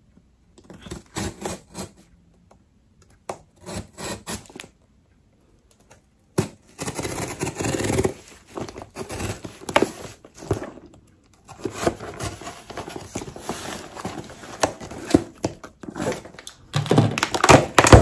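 Cardboard shipping box being opened by hand: packing tape picked at and torn off in short bursts, then paper wrapping rustling and crinkling more steadily.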